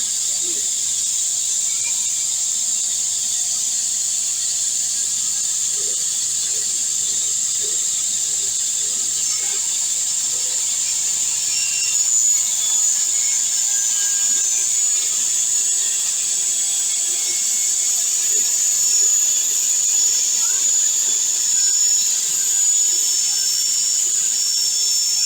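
Sliding table saw with a three-phase motor running steadily at full speed: an even high whine over a hiss, with no change in load.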